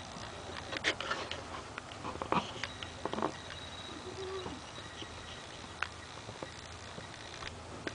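Cashmere goat doe in labour: a few short breathy sounds and a brief low grunt about four seconds in, with faint rustling in the straw.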